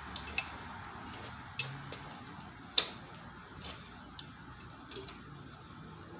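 Irregular sharp metal clicks and clinks, about six in all with the loudest about three seconds in, from a wrench and metal parts being handled at the motorcycle's oil drain plug.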